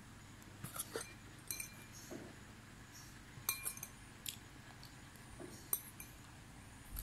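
Faint light clicks and clinks, a dozen or so at irregular intervals, a few leaving a short ringing tone.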